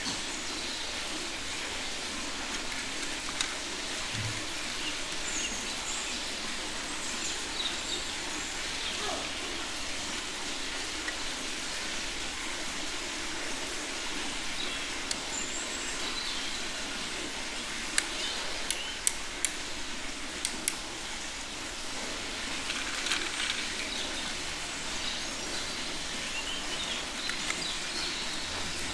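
Steady outdoor hiss with faint bird chirps, and a few sharp clicks of plastic toy parts being handled and fitted about two-thirds of the way through.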